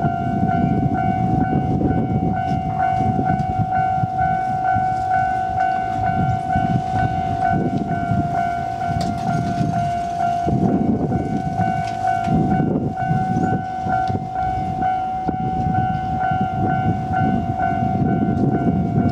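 Japanese level-crossing warning alarm ringing continuously, a steady electronic tone pulsing about twice a second, while a freight train rumbles over the crossing, its low rumble swelling and fading.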